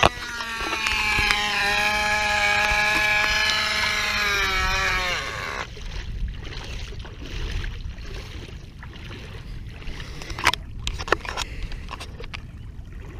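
Herkimer "OK" CO2 model motor running at high speed, a buzzing whine whose pitch wavers and then sags before it breaks off about five and a half seconds in. After it, quieter outdoor noise with a few sharp clicks.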